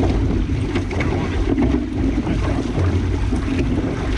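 Wind buffeting the microphone over rushing water on a moving boat at sea, with irregular splashes.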